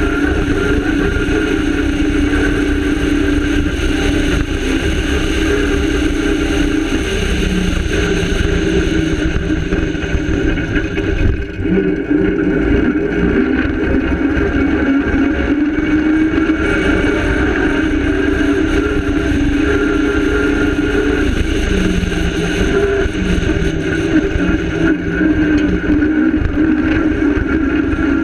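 Rally car's engine running hard on a bumpy dirt track, its pitch climbing and dropping again and again with the throttle and gear changes, over a constant rumble of tyres and suspension on rough ground. There is a brief lift off the throttle about eleven seconds in.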